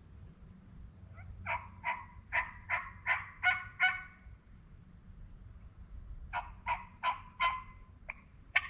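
Turkey yelping: a run of about seven evenly spaced yelps, about two and a half a second, then after a pause a shorter run of four and a couple of single yelps near the end.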